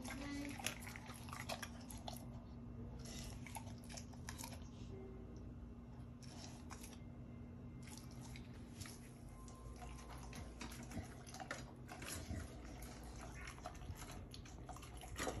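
Pit bull licking and smacking its lips: a scatter of faint, short wet clicks, over a faint steady hum.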